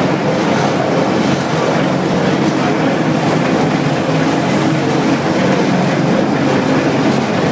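Construction hoist cage climbing, its drive and steel-mesh car giving a steady, loud mechanical running noise.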